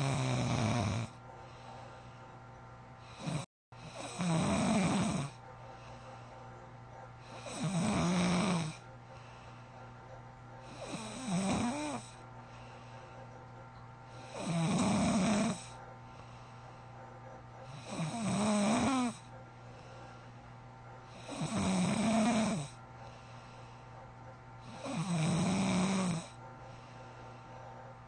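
Heavy snoring: eight long snores, one about every three and a half seconds, over a steady low hum.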